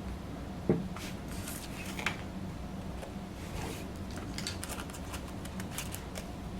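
Light handling noises from foam wheel pieces being glued and fitted together by hand: soft rustles and small clicks, with a knock under a second in, over a steady low hum.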